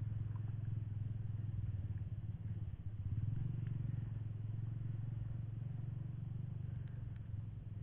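A small engine running steadily at a constant speed, a low even hum.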